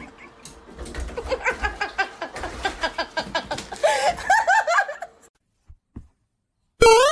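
People laughing in quick, breathy bursts for about five seconds. Near the end comes a short, loud tone that slides upward in pitch.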